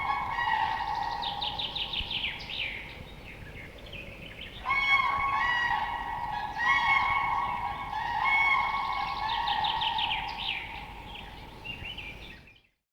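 Cranes calling: repeated trumpeting calls with rapid higher trilling notes over them, loud fresh bouts starting about five, seven and eight and a half seconds in. The sound cuts off shortly before the end.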